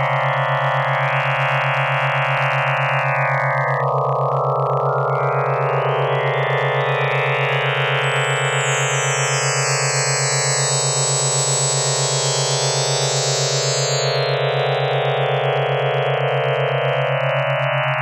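Synthesized electronic tones: a steady low hum with a fast flutter under a dense layer of high, shimmering tones that slowly swell and shift in pitch range, with a brighter high layer joining midway and fading before the end.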